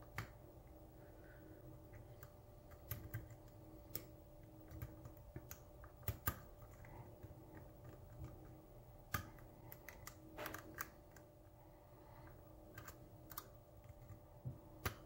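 Faint, irregular metallic clicks and ticks of a hook pick and tension wrench working the pins of the One Fang Vampire, a pin-tumbler challenge lock, during single-pin picking, about a dozen over the stretch, with a faint steady hum underneath.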